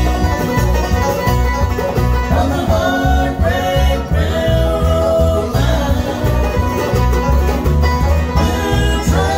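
Bluegrass band playing live: five-string banjo, mandolin and acoustic guitars over a steady low beat.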